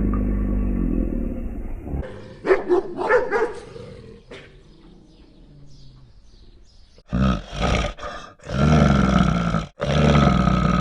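Animal calls from several short clips: a low steady call that stops about two seconds in, a quick run of short calls, then loud long calls near the end.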